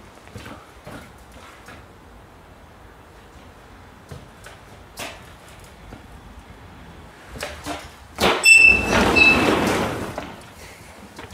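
Light steps and knocks in the empty box body of a Luton van. About eight seconds in comes a loud metallic bang, then about two seconds of clattering and rattling with a brief high metallic ring, as from a door or metal fitting on the box body being worked.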